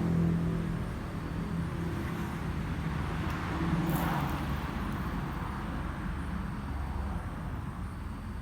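Motor vehicle passing by, a low rumble that swells and peaks about four seconds in, over a steady background of traffic.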